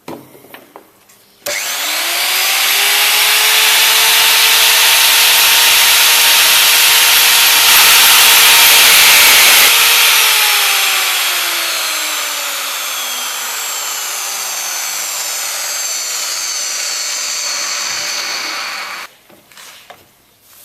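Electromagnetic drill spinning up and cutting into the tank wall, a loud grinding whir over a steady motor tone. From about halfway the motor pitch slowly sinks and the cutting noise eases off, then it stops abruptly near the end.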